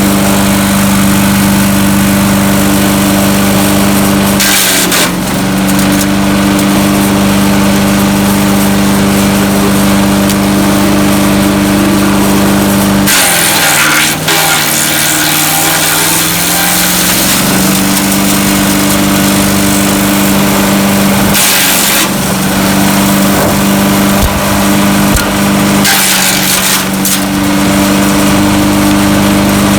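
Landworks 7 hp gas-engine wood chipper running steadily while branches are fed through and chipped in several bursts. About halfway through, a longer feed lasts several seconds: the engine drops in pitch under the load, then recovers.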